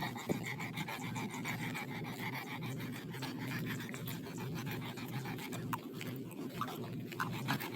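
Pit bull dog panting steadily and rapidly, with a few faint clicks near the end.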